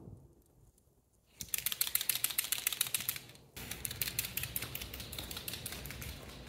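A second and a half of near silence, then rapid, even mechanical clicking, roughly ten clicks a second, with a short break at about three and a half seconds before it resumes.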